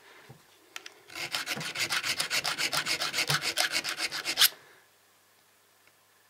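Round needle file rasping quickly back and forth on a tooth of a mini cordless chainsaw's chain, several strokes a second. It starts about a second in and stops suddenly after about three and a half seconds.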